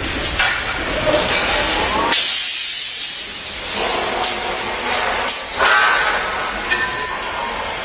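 Construction-site machinery noise, with a loud burst of high hissing about two seconds in that lasts a second and a half, and a shorter hiss later.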